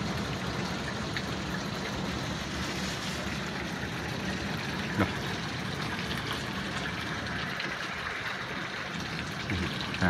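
Hail mixed with rain falling heavily in a steady, even hiss. One sharp tap stands out about halfway through.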